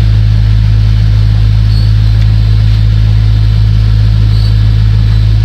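A loud, steady low hum that does not change.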